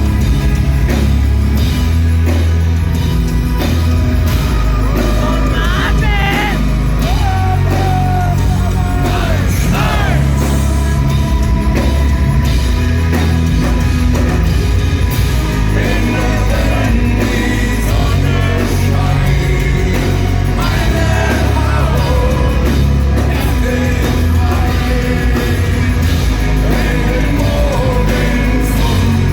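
Live industrial metal band playing loud, with heavy bass and drums under a deep male voice singing and shouting.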